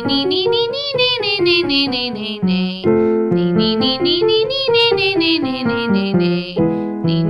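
Piano accompaniment stepping through a vocal warm-up pattern, with a singing voice gliding up and down over it. The rise-and-fall figure repeats about every 3.7 seconds, moving through successive keys.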